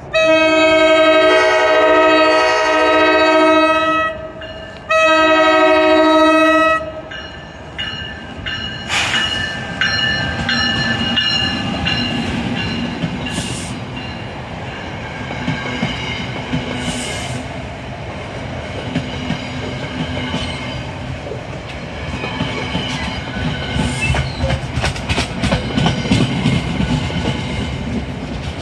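NJ Transit electric locomotive's multi-chime horn sounding a chord, a long blast of about four seconds and then a shorter one of about two seconds. Then the train passes close by: a steady rumble of wheels, with rapid clicking and clacking as they run over rail joints and switches.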